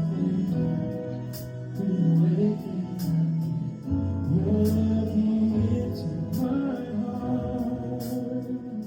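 Live church worship band playing a slow song, with sustained chords over a bass line and occasional light cymbal strokes.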